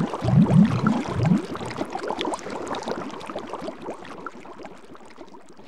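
Bubbling water: a dense patter of small bubble pops and short rising blips, loudest at first and fading away.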